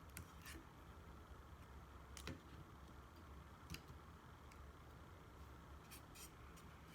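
Near silence with a handful of faint, scattered clicks from a small precision screwdriver and tiny screws being worked inside an open iPhone.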